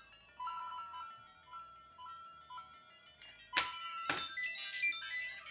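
LEGO Super Mario interactive figure playing its electronic game music through its small built-in speaker: short repeating beep-notes. About three and a half seconds in come two sharp knocks, then quicker, higher jingles and blips from the figure.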